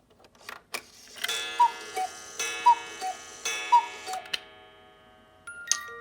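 Cuckoo clock's cuckoo calling three times, each call two falling notes with the puff of the bellows, preceded by a few clicks of the striking mechanism. Near the end the clock's music box begins a tinkling tune.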